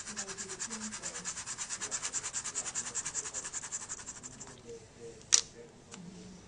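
Pen scribbling hard back and forth over a paper barcode label, a fast even scratching of about eight strokes a second that stops about four and a half seconds in. A single sharp tap follows a little later.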